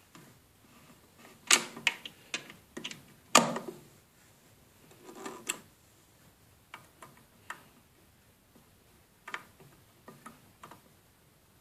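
USB wall charger being unplugged from a power strip socket and pushed into another, with a USB cable's plug inserted into it: a run of sharp plastic clicks and knocks, the loudest about three and a half seconds in, followed by lighter scattered ticks.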